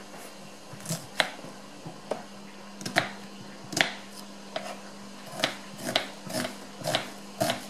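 Kitchen knife slicing an onion on a wooden cutting board: irregular sharp taps of the blade striking the board, about one or two a second.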